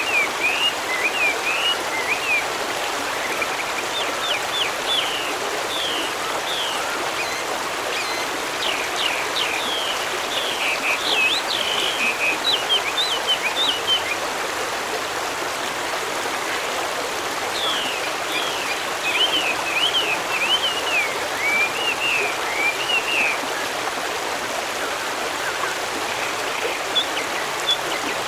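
A flowing stream with a steady rushing babble, and small birds chirping over it in quick bouts of song that stop for a few seconds now and then.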